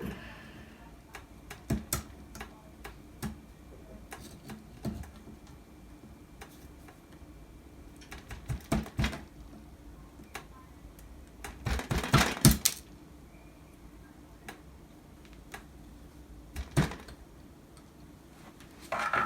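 Small flat screwdriver clicking and scraping against an RJ45 jack held in a vise as it pries off the gold-plated contacts: scattered sharp clicks, with quick bursts of clicks about nine seconds in and a louder cluster about twelve seconds in.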